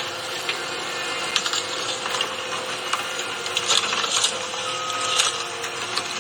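Excavator and truck engines running while material is loaded, with scattered clanks and rattles. A reversing alarm beeps once, about three-quarters of the way through.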